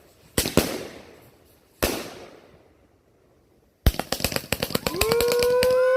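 A 27-shot fireworks cake firing: three sharp bangs in the first two seconds, then after a pause a rapid run of crackling pops. Near the end a man's long cheering 'woo' rises over the crackle.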